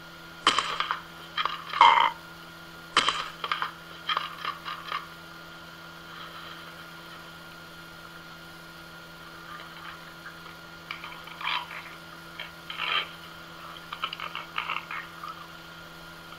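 An Amazon parrot gives a series of short, harsh squawks and growls, in two clusters: one in the first few seconds and another near the end, with a quieter stretch between.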